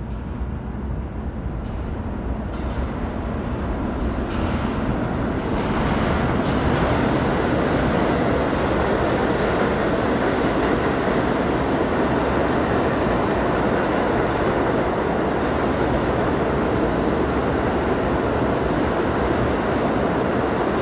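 A stainless-steel New York City subway train coming into an underground station and running past on the far track without slowing. The noise of its wheels on the rails builds over the first six seconds or so, then holds steady and loud.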